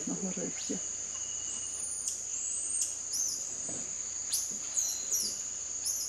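Rainforest insects keep up a steady high-pitched drone, while several short, high chirps and whistles sweep up and down over it.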